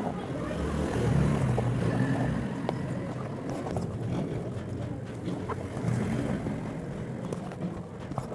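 A low engine rumble, swelling about a second in and again near six seconds, with a few faint clicks over it.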